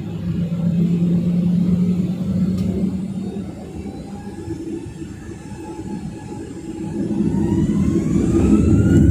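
Boeing 737-900ER's CFM56-7B turbofan engines heard from inside the cabin, a steady rumble at first, then spooling up with a rising whine and growing louder in the last few seconds as take-off thrust is applied.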